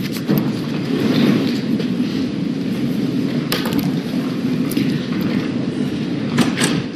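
Courtroom room noise while people stand and move about: a steady low rumble of shuffling and rustling, with a few sharp clicks and knocks.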